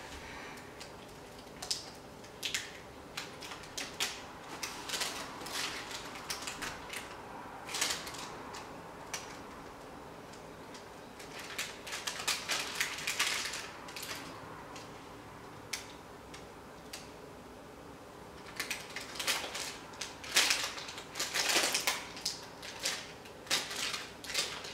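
Metal spoon and table knife scraping and tapping in a baking-paper-lined tray while pressing a sticky marshmallow and puffed-rice mixture into place. Irregular clicks and scrapes with short pauses, busiest in two stretches, the second near the end.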